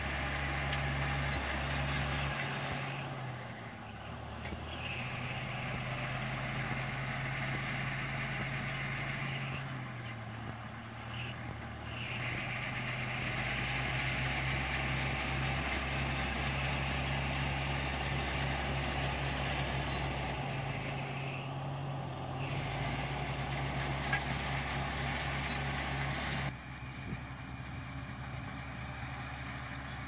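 Crawler bulldozer's diesel engine running steadily, its low note dropping away and picking up again three times. The sound changes abruptly near the end.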